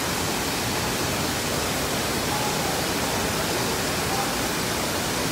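Steady rushing water of an indoor water park, an even hiss that doesn't change, with faint voices in the distance.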